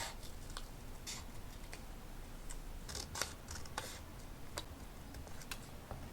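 Journaling desk work with paper and scissors: irregular light clicks and taps, with short crisp paper rustles, most of them bunched a few seconds in.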